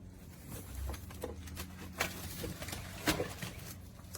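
Scattered light clicks and knocks from hands handling a plastic espresso machine and its parts, the sharpest about two and three seconds in, over a faint steady low hum.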